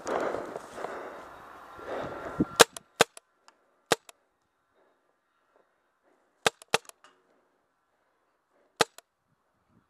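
RAP4 468 magfed paintball marker firing single shots, six sharp pops at uneven intervals: three in the first second and a half of the firing, then a quick pair, then one more near the end. A noisy rustle comes before the first shot.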